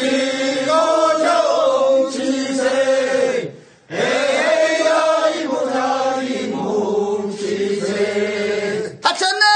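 Korean folk work song for pulling rice seedlings (mojjineun sori), sung unaccompanied in long drawn-out phrases, with a short break for breath about three and a half seconds in.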